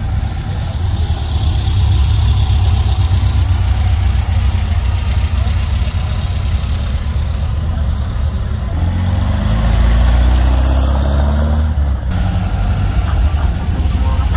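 Air-cooled flat-four engines of vintage Volkswagen Type 2 buses running as they roll slowly past. About nine seconds in, one engine's pitch rises as it speeds up; it is loudest around ten seconds, then drops away about three seconds later.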